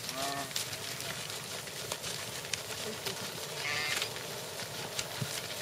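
Wildebeest herd calling as it runs: a short pitched call at the start and a higher call about four seconds in, over scattered clicks.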